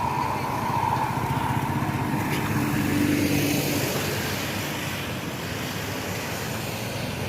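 A tour bus's engine running as the bus drives past, loudest about three seconds in and easing off after.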